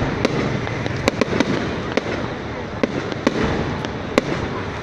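Fireworks display going off: a continuous din of bursts with sharp bangs standing out at irregular moments, sometimes several in quick succession.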